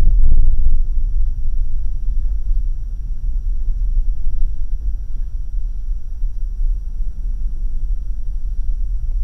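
A vehicle driving slowly on a gravel road, heard from inside the cabin: a steady low rumble of tyres and engine.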